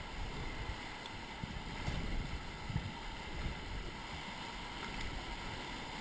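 River raft crew paddling forward: paddles splashing and river water rushing around the raft, with a few soft low knocks.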